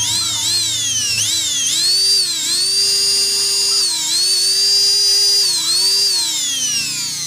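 Rewound juicer motor's armature spinning with a high whine, run through a 100-watt series test bulb. It speeds up and slows in short surges several times, holds top speed, then winds down near the end. It now starts by itself, the push-start fault cured by repairing an armature lead whose insulation had not been stripped.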